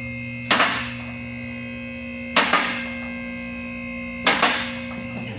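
Background music: a steady synth drone, hit by a sharp double beat about every two seconds. It cuts off suddenly at the end.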